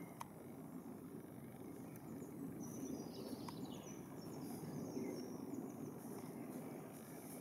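Woodland ambience: small birds singing, with a trill that falls in pitch about three seconds in, over a steady low background noise.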